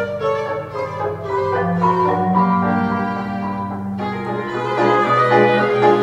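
Live chamber ensemble playing silent-film accompaniment music: a violin melody with clarinet over upright piano, and steady sustained low notes underneath.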